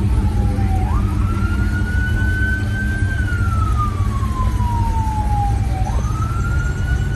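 A wailing siren: its pitch falls slowly for about three seconds, jumps sharply back up, then climbs slowly, twice, over a steady low rumble.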